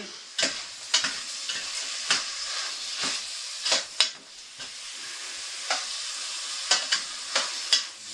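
Beef and onions sizzling as they brown in a stainless steel pot, with a stirring utensil scraping and knocking against the pot about a dozen times at irregular intervals.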